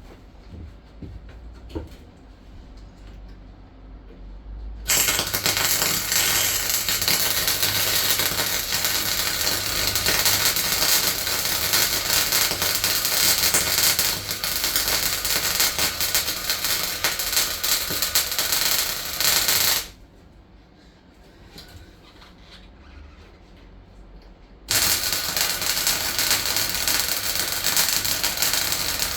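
Welding on a van floor: the arc crackles loudly and steadily in two long runs. The first starts about five seconds in and stops abruptly about fifteen seconds later; the second starts about five seconds after that and carries on.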